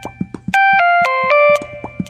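A ringtone melody of short, steady-pitched notes played over a regular drum beat. A four-note falling-then-rising phrase begins about half a second in.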